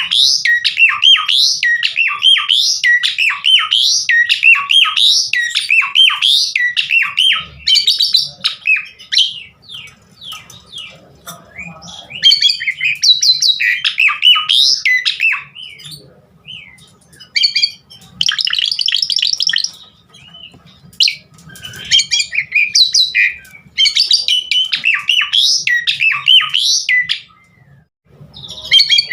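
Asian pied starling (jalak suren) singing a long, varied song of fast chattering notes and whistles. It comes in several bouts with short pauses between, and the first bout runs about seven seconds.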